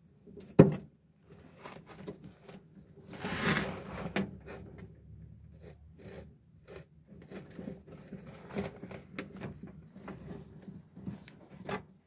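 Hands handling network patch cables at a switch: cables rubbing and rustling with scattered small plastic clicks. A sharp knock about half a second in is the loudest sound, and a longer rustle follows around three to four seconds in.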